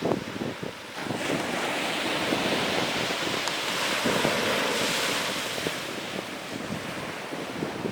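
Sea waves washing on the shore: one surge swells about a second in and eases off after about five seconds, with wind buffeting the microphone.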